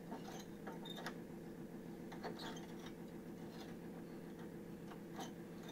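A lever door handle being pushed down and let back up, its latch mechanism making several faint, irregular clicks.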